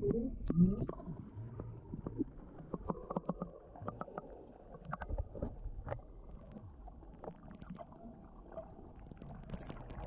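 Water heard from below the surface: a muffled low rumble with scattered small clicks and knocks as the swimmer moves through the water.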